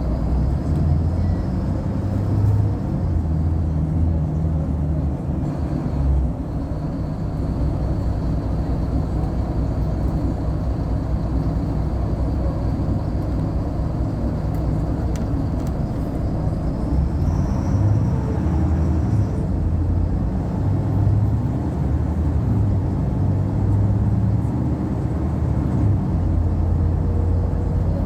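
Inside a moving city bus: steady low engine and road rumble, the engine note swelling and easing as it drives, with a faint high whine running through it.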